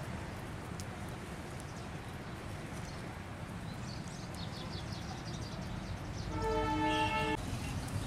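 Steady outdoor background noise, with a vehicle horn sounding once for about a second near the end.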